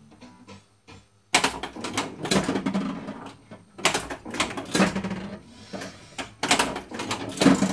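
Gottlieb Strikes and Spares bowling pinball machine's mechanism clattering in three bursts of rapid clicking and rattling as pins are knocked down and reset.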